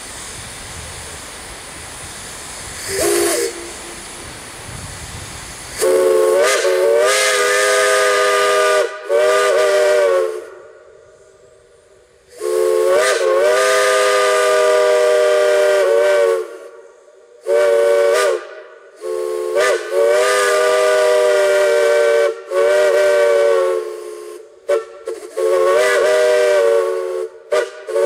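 Multi-chime steam whistle sounding several notes at once, blown in a series of long and short blasts that each swoop up in pitch at the start. Before the first long blast there is a steady hiss, with one brief toot about three seconds in.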